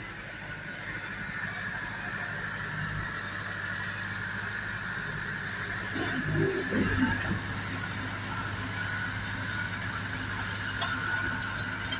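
Same Frutero tractor's diesel engine running steadily, with a brief louder patch about six seconds in.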